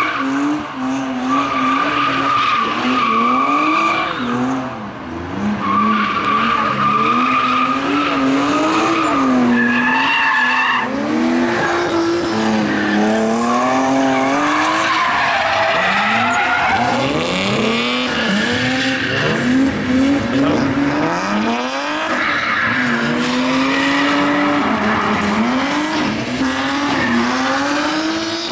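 BMW rally cars drifting sideways through corners: engines revving up and down again and again, with long, steady tyre squeals through the first half.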